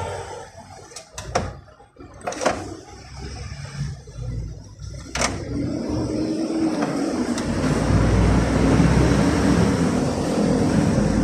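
A few sharp clicks and knocks, then from about five seconds in a steady mechanical running sound with a low hum that grows louder and holds.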